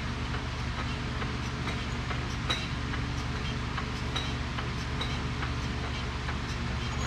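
A steady low machine hum, with a few scattered light metallic clinks of tools or parts.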